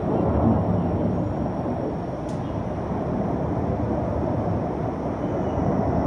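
Formation of jet aircraft flying over, heard as a steady rushing rumble.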